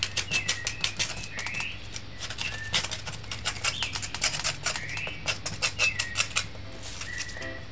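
A knife cuts and scrapes the skin off a piece of pumpkin, with a plastic bag crinkling: a rapid, irregular run of sharp clicks and scrapes. Short bird chirps sound in the background.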